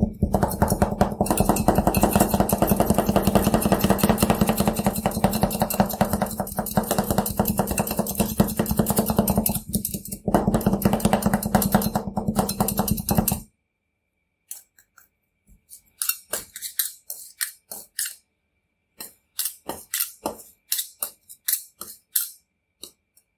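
Two steel spatulas chopping Oreo cookies-and-cream ice cream mix on the cold steel plate of a rolled-ice-cream machine: a fast, dense clatter of blade on metal for about the first thirteen seconds, then slower, separate taps and scrapes.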